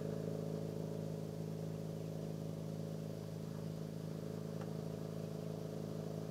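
Motorboat engine running steadily with a low, even hum that fades slightly.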